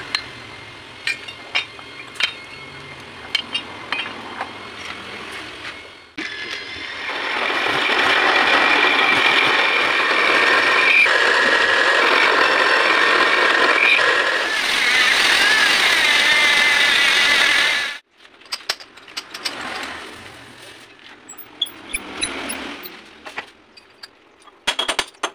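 Light metal clicks and knocks as a universal-joint cross is handled in its yoke. Then comes the loudest part, a drill press spinning a steel disc against a lathe tool bit clamped in the vise. It cuts the metal with a loud, steady whine for about ten seconds and then stops suddenly, followed by light clatter of handling.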